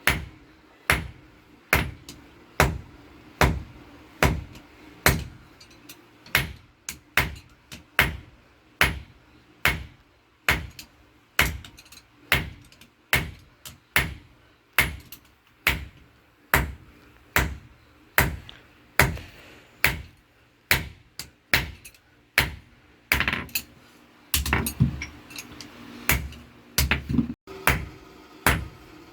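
Blacksmith's hand hammer striking hot steel on an anvil, forging rebar into tongs, in a steady rhythm of about one blow a second. Many blows are followed by a lighter rebound tap. Each blow rings briefly. Near the end the rhythm breaks up into quicker, irregular knocks.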